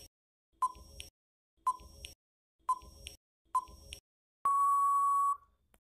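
Quiz countdown timer sound effect: four short electronic beeps about a second apart, then one longer, steady final beep of just under a second signalling that time is up.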